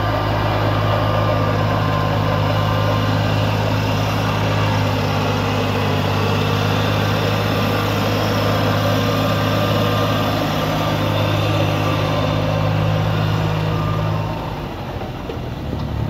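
Farm tractor's diesel engine running steadily under load as it pulls a rotary tiller through flooded paddy mud. Near the end the engine note drops lower and quieter for a moment.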